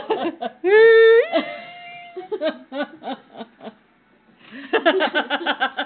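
A woman laughing: a long drawn-out high vocal cry about a second in, then bursts of choppy laughter, with a quick breathy run of laughs near the end.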